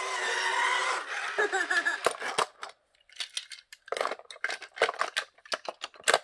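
Small toy cars clicking and clattering against one another and against the hard plastic dump bed of a toy dump truck as hands handle and load them, a run of light, uneven knocks. The first second holds a continuous sound with a wavering pitch that stops abruptly.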